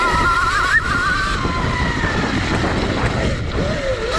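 Electric motor of a CZEM Drill One electric dirt bike whining under way, its pitch rising in the first second and then falling off, with a lower wavering whine near the end. Under it runs steady wind noise on the microphone and the rumble of riding a dirt trail.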